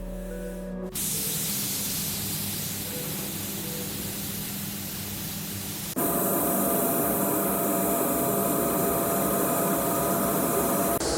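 Steady hissing noise. About six seconds in it cuts abruptly to a louder hiss with a steady hum under it.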